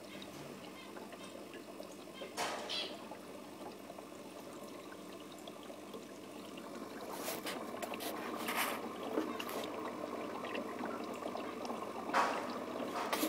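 Aquarium sponge filters bubbling, a steady trickle of water and air, with a handful of brief louder clicks scattered through.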